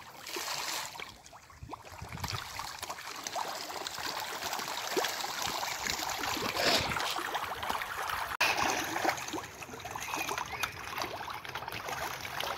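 A shoal of tilapia splashing and churning at the pond surface in a feeding frenzy: a dense, steady patter of small splashes that builds up about two seconds in.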